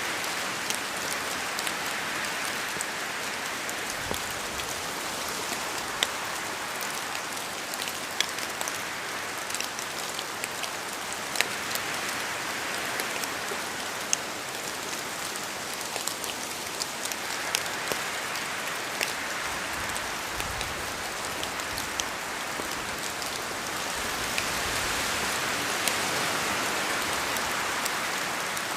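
Steady rain falling, with the close, sharp taps of individual drops striking a surface scattered through it.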